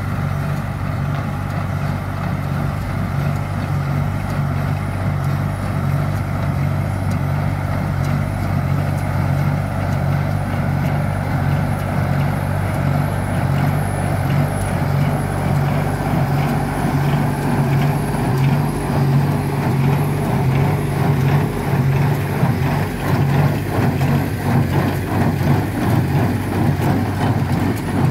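Massey Ferguson tractor's diesel engine running steadily under load while it drives a Welger AP61 small square baler baling hay, the baler's plunger and pickup adding a regular rhythmic clatter that grows louder near the end.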